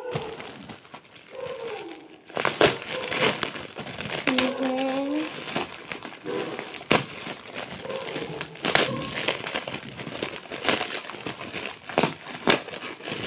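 Shiny blue gift wrap crinkling and crackling in a run of short bursts as hands handle it and pull it open, mostly from about two seconds in.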